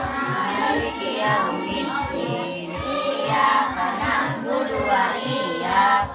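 A group of children singing together, with music playing.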